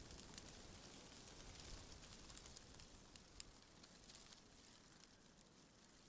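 Near silence: faint forest ambience with scattered light, irregular crackling ticks.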